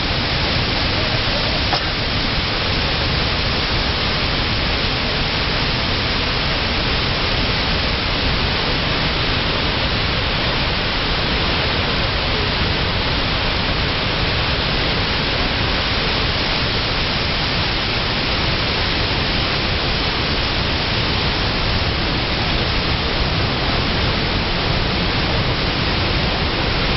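Niagara Falls pouring: a steady, even rush of falling water.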